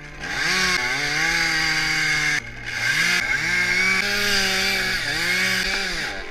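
Two-stroke chainsaw revving: it runs up to full speed and holds, drops off sharply about two and a half seconds in, then revs up again, dips briefly, revs once more and falls back near the end.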